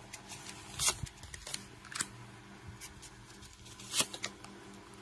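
Tarot cards being handled on a table: a few short swishes and taps as cards are slid, drawn and laid down, the clearest about one, two and four seconds in.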